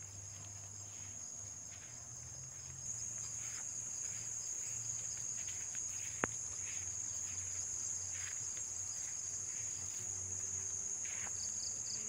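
Crickets chirring in a steady high-pitched chorus, louder from about three seconds in, with one sharp click about halfway through.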